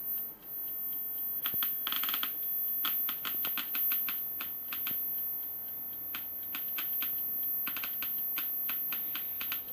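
Homemade Geiger counter clicking at irregular intervals, sometimes in quick clusters. Each click is one detected radiation count.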